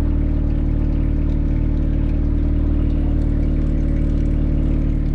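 2019 Jeep Renegade engine idling steadily through its exhaust. It runs again now that the muffler, blocked by frozen water, has been drilled open to drain.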